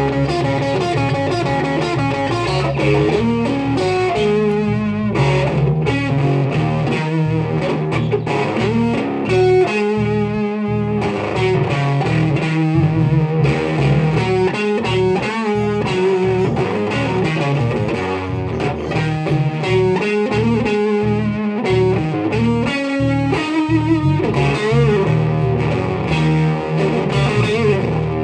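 Live blues-rock played on electric guitar and electric bass. The guitar plays an instrumental lead with several wavering, shaken notes over a steady bass line.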